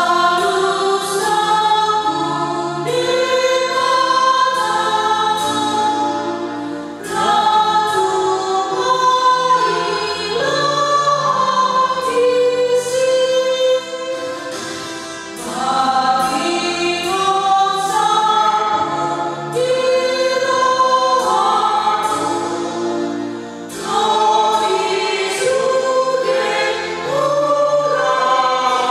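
A trio of women singing a hymn in harmony into microphones, in long held phrases that pause briefly every several seconds.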